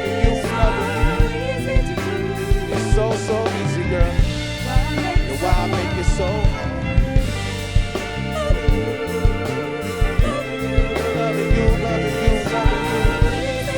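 Live soul band playing an instrumental passage: a drum kit beat and bass under strings, horns and piano, with a wavering melody line over the top.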